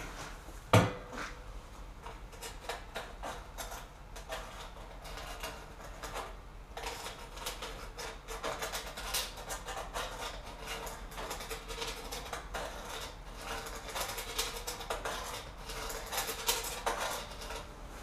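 Firebricks being set and shifted into place inside a steel barrel: irregular scraping, rubbing and light knocks, with one sharp knock about a second in.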